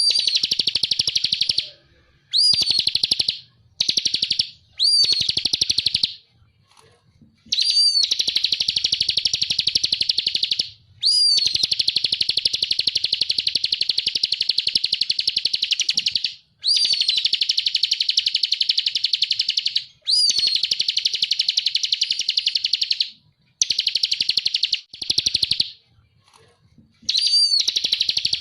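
Ciblek (bar-winged prinia) singing in repeated bouts of a rapid, high, buzzy trill. Each bout opens with a short upswept note and runs one to five seconds before a short pause.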